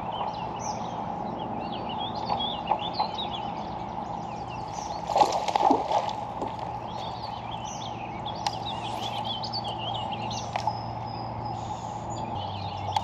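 Several birds singing and chirping over a steady low hum, with one brief louder rush of noise a little past the middle.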